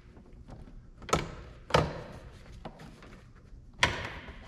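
Sharp plastic clicks and knocks from a hand tool prying and working at the plastic door-panel trim around a pickup's inside door handle: one about a second in, another half a second later, and a third near the end, with fainter ticks between.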